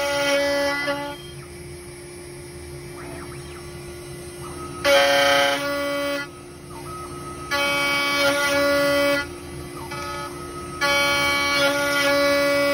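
CNC router spindle cutting a deep mortise in wood. The cut sounds as a loud buzzing tone that comes and goes: about a second at the start, then three more stretches of one and a half to two seconds, roughly every three seconds. Between them a quieter steady spindle hum is heard.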